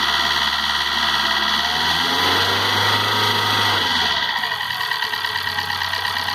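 Chery QQ engine running with a mechanical noise from the top of the engine, briefly revved up and back down in the middle. The mechanic suspects the engine is out of timing or the valves on its mechanical (non-hydraulic) tappets were badly adjusted after the cylinder head job.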